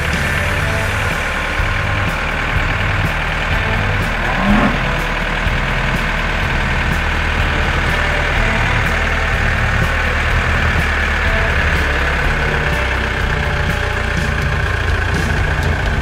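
Cartoon tractor engine sound effect running steadily, a continuous low drone. A brief rising sound about four and a half seconds in.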